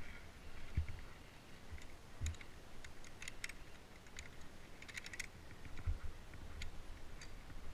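Scattered light metallic clicks and clinks of via ferrata gear, carabiners knocking and sliding on the steel safety cable, in quick clusters about three and five seconds in. A few dull thumps of steps on rock mix in.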